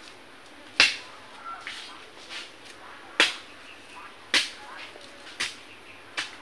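Sharp cracking snaps as the tough sheath layers of a bamboo shoot are broken and torn off by hand: five loud cracks about a second apart, with a few fainter tearing snaps between them.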